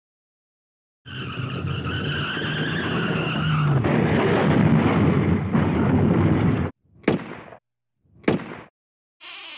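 Car tyres screeching in a long skid that turns into a louder, rough crash noise and cuts off suddenly, followed by two sharp bangs about a second apart.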